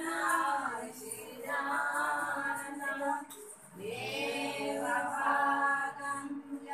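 A group of women singing a devotional song together, in drawn-out phrases broken by two short pauses.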